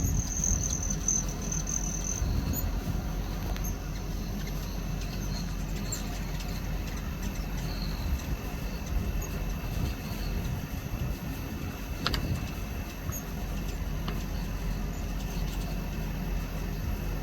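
A hummingbird making a loud, high-pitched squeak, like a squeaking belt on a car engine, for about two seconds near the start, with fainter high chirps later. A steady low rumble runs underneath.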